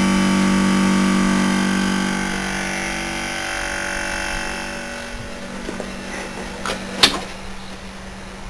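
Window air conditioner's compressor running with a steady hum, with refrigerant hissing through the evaporator coil. The hum dies away after two or three seconds, and a single sharp click comes about seven seconds in.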